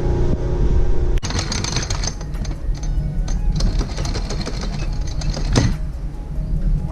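Anchor chain being hauled aboard by a windlass, rattling and clattering rapidly link by link, with a louder clunk near the end as the anchor comes up.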